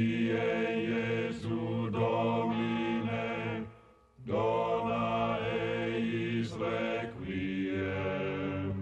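Chanting in the style of monastic plainchant: low, long-held sung notes in two long phrases, with a brief break just under four seconds in.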